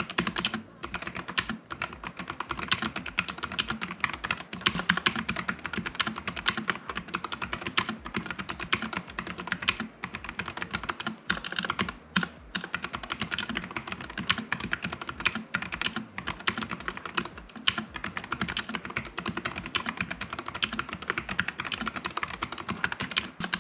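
Fast, continuous typing on a NuPhy Air75 low-profile mechanical keyboard with Gateron low-profile switches: a dense run of key clacks with only a couple of brief pauses.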